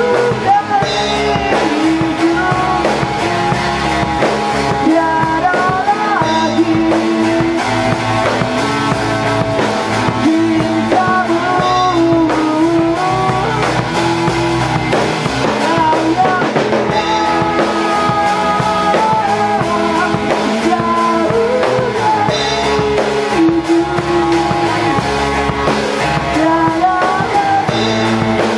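Rock band playing live in rehearsal: drum kit, electric bass and electric guitars together, with a held melody line that bends in pitch over the top. Loud and steady, with a cymbal-bright accent about every five to six seconds.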